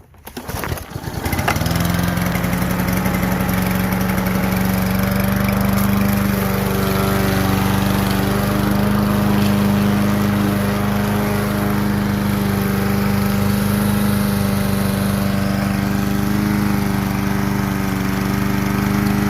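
Push lawn mower engine catching about a second in after a pull on the starter cord, then running steadily at a constant speed.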